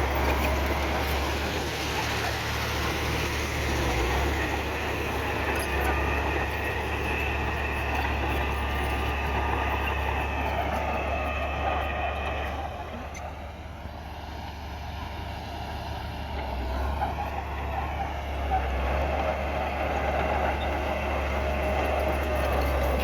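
Heavy diesel earthmoving machinery running under load. The engine note eases off about halfway through and builds again near the end.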